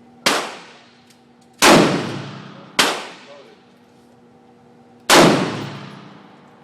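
Four AR-15 rifle shots at uneven intervals, each a sharp crack followed by a ringing tail that dies away over about a second. A faint steady hum lies underneath.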